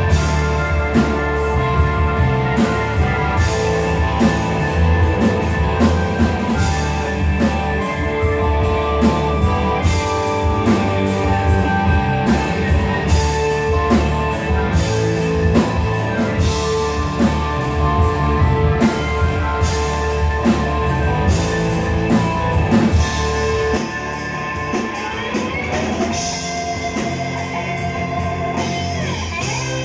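Rock band playing live: electric guitar, bass guitar and drum kit with a steady beat. Near the end the drum hits stop and a single note is bent upward and held over the band.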